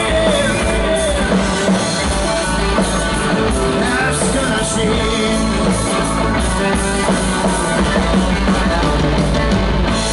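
Live rock band playing: Les Paul-style electric guitar, drums and bass, with some singing, loud and steady throughout.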